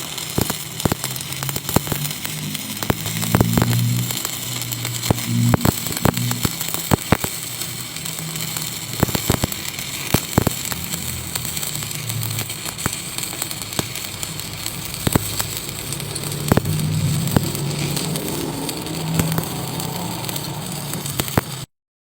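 Electric arc welding: a steady crackling hiss, spattered with irregular sharp pops and a low hum that swells and fades. The arc stops abruptly near the end.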